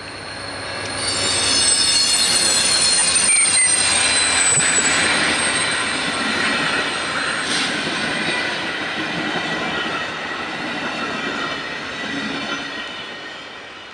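VIA Rail passenger train led by a GE Genesis locomotive passing on a curve, its wheels squealing against the rails in several high, steady tones. The sound builds about a second in and is loudest for the next few seconds, then the running noise of the passing coaches fades near the end.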